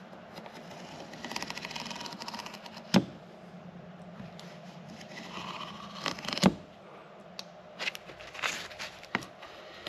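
A rubber hose being cut and split lengthwise: a rasping scrape for a couple of seconds, with sharp knocks about three and six and a half seconds in and a few smaller clicks and scrapes near the end.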